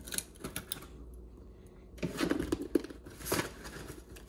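A utility knife slitting the packing tape on a cardboard box, with a few light clicks. About two seconds in, the cardboard flaps are pulled open, crackling and scraping with a few knocks.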